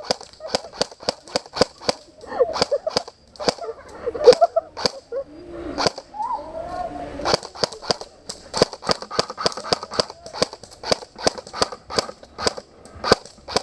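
Airsoft guns firing single shots in quick succession as sharp cracks, about two or three a second, with a short lull about six seconds in.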